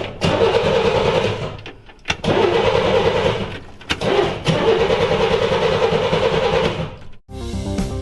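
Car engine cranking on its electric starter in three long attempts separated by short pauses, with the rapid pulsing of the starter turning the engine over. Music begins near the end.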